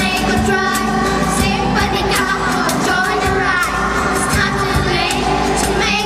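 Children's band performing live: several children singing together into microphones over strummed acoustic and electric guitars and a box-drum beat.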